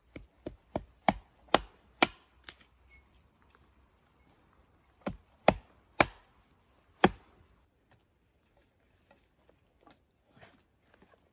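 Hatchet splitting sticks into kindling on a wooden root: a quick run of seven sharp chops, a pause of a couple of seconds, then four more blows. Faint clatter of split sticks near the end.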